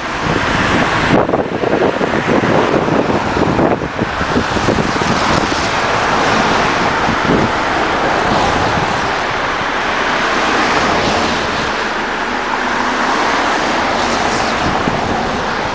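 Road traffic passing on a busy multi-lane street, a steady tyre and engine hiss, with wind buffeting the microphone as an uneven rumble, strongest in the first few seconds.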